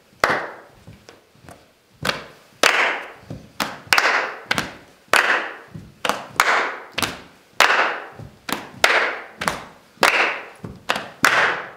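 Four people doing body percussion together in a steady repeating rhythm of hand claps and chest pats, about one or two strikes a second. The sharp slaps ring briefly in the hall and stop abruptly near the end.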